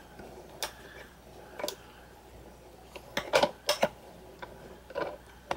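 Light, scattered clicks and rustles of scrapbook paper sheets being handled and shifted, with a short flurry of them from about three seconds in.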